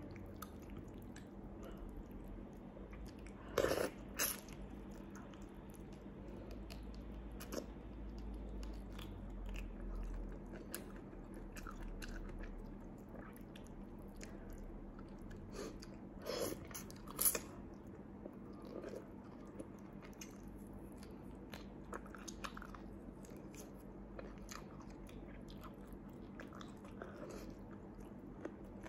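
A person chewing and biting food close to the microphone: quiet wet mouth sounds and small clicks, with a few louder bites about four seconds in and again around seventeen seconds. A faint steady hum lies underneath.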